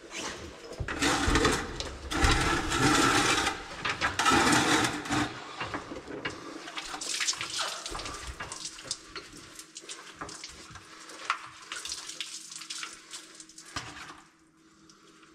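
Water splashing and dripping as mud is rinsed by hand out of a truck's wiring harness with water scooped from a bucket. It is loudest for the first few seconds, then goes on as quieter, scattered splashes and drips that die away near the end.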